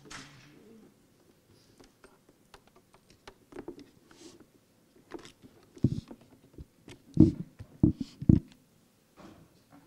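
Scattered small clicks and knocks, then four loud, dull thumps in the second half, each under a second apart: equipment being handled close to a microphone.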